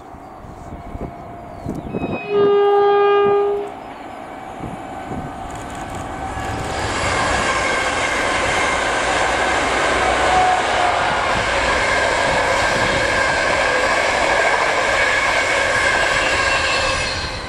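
A train horn sounds once, a single held note lasting about a second and a half, followed by electric passenger trains passing: a Class 321 unit and a locomotive-hauled set of coaches. The rushing wheel-and-rail noise builds from about six seconds in, holds steady, then fades near the end.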